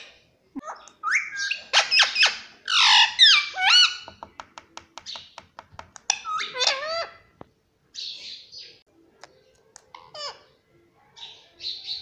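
Rose-ringed (Indian ringneck) parakeet chattering: a string of squawks and whistled chirps that swoop up and down in pitch, with a quick run of sharp clicks about four to six seconds in. The calls turn quieter and shorter in the second half.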